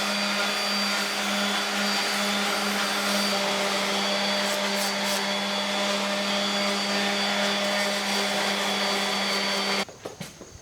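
Electric power sander running steadily with a constant motor hum and sanding hiss, sanding freshly cut pieces; it cuts off suddenly near the end.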